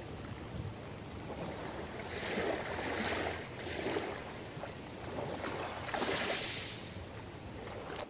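Small sea waves washing onto a pebble beach, a soft rushing that swells and fades twice, about two and a half and six seconds in.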